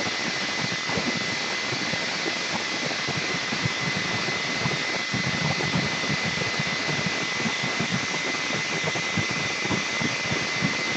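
Handheld hair dryer running steadily: a rushing blast of air with a steady high whine from its motor, blown over leather to dry a fresh coat of dye.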